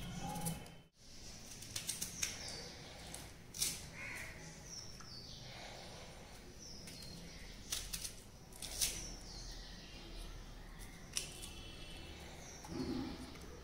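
Kitchen knife peeling and slicing firm raw green mangoes, with crisp cutting clicks and scrapes at irregular intervals.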